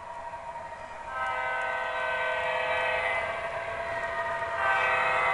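Model diesel locomotive's horn sounding as it passes: a long steady chord of several tones starting about a second in, then a louder second blast near the end.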